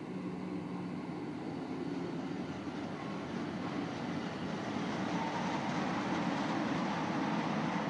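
Pair of coupled SBB electric locomotives running light past at low speed: steady rumble of wheels rolling on the rails and running gear, growing a little louder as the locomotives pass close by.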